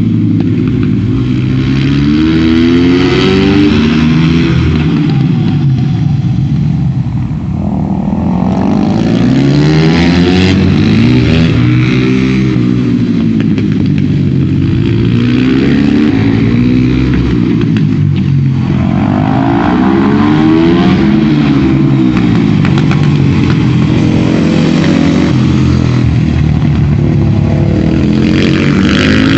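Supermoto motorcycle engine revving hard and easing off again and again, its pitch climbing under acceleration and dropping away under braking every few seconds.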